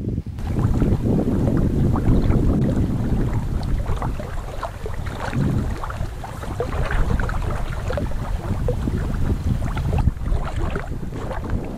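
Wind buffeting the microphone: a loud, uneven low rumble that surges and eases, with scattered small clicks of water lapping through it.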